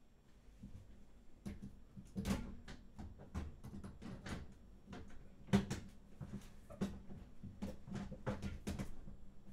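Irregular clicks, knocks and plastic rattles of a case fan being handled and pulled out of a desktop computer case, with one sharper knock about five and a half seconds in.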